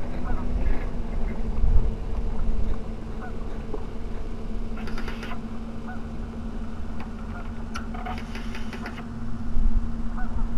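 Waterfowl calling with short scattered honks and quacks over a steady engine hum, with bursts of sharp clicks about halfway through and again near the end.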